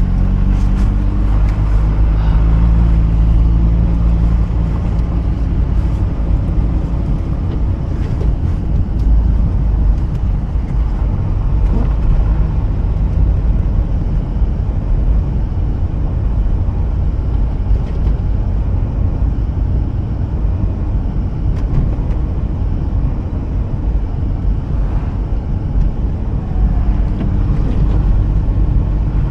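Mazda RX-8 driving slowly, a steady low rumble of its two-rotor rotary engine and road noise. The engine's tones stand out in the first few seconds, then give way to a more even rumble.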